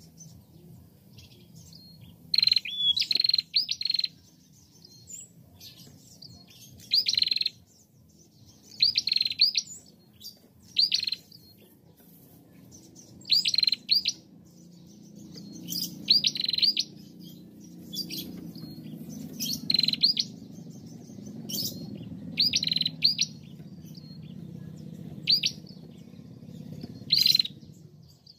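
Female ashy tailorbird (prenjak) calling: short, sharp, high chirps in quick bursts of two to four notes, repeated every second or two.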